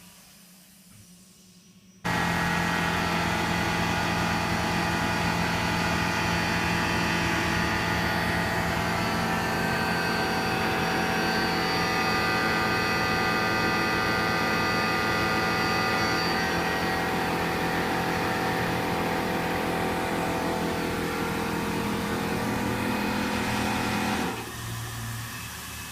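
Tormach PCNC 770 CNC mill cutting 6061 aluminum: the machining sound comes in suddenly about two seconds in, loud and steady with a whine of many held tones. It drops to a quieter hiss shortly before the end.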